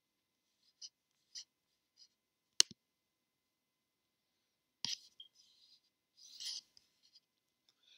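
Computer mouse clicks: one sharp click about two and a half seconds in and a softer one near five seconds, with a few faint ticks and a soft rustle between them.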